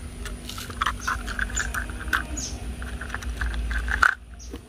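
Small birds chirping in quick short calls, with light clicks of plastic toy train cars being handled and coupled together. The sound drops away abruptly about four seconds in.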